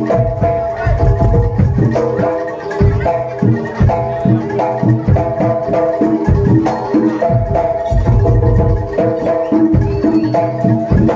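Jaranan dor ensemble playing: Javanese pitched metal percussion strikes short repeated notes over frequent, heavy drum strokes, in a steady rhythm.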